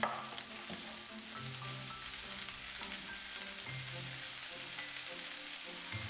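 Diced onion, carrot and garlic sizzling steadily in olive oil in a frying pan, stirred with a wooden spatula, with a few light scrapes and ticks in the first second.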